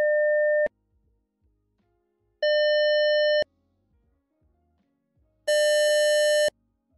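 Synthesized tones at one pitch, each about a second long with silences between: partial Fourier-series sums of a square wave. The first, ending just under a second in, is soft and nearly pure; the second is brighter; the third, near the end, is a buzzy tone close to a true square wave.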